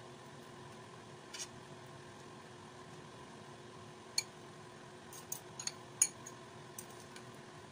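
Scattered light clicks and clinks of kitchen utensils against a metal baking tray as marinated beef steaks are laid on it, the sharpest about six seconds in, over a steady faint hum.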